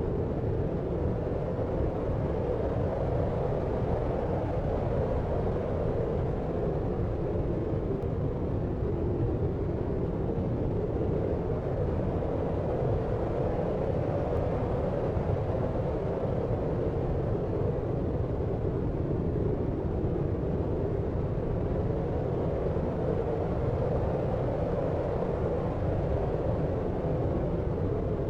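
Steady deep noise for sleep, like brown noise: an even, low rumbling hiss with no changes or separate sounds.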